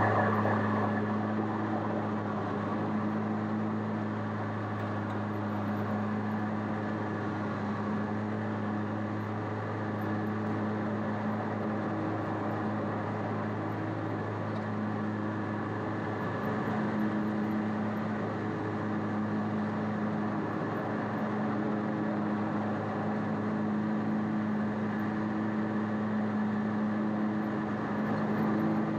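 Bad Boy ZT Elite zero-turn mower's engine running at a steady speed, a little louder at the start and easing down over the first couple of seconds.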